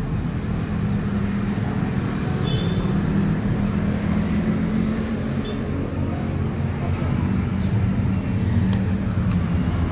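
Steady low rumble of busy road traffic, the engines and tyres of vehicles passing close by.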